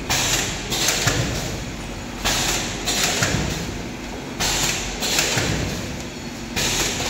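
Collar-type vertical pouch packaging machine running through its cycle, about once every two seconds: each cycle a sudden hissing rush that fades, with a low thump in between, as the sealing jaws close and a filled foil pouch is cut and dropped.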